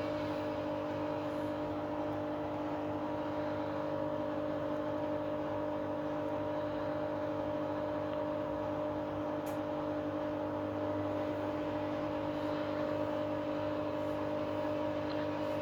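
Washing machine spinning its drum at a steady speed on a spin cycle: a constant motor whine over a hum, holding one pitch throughout.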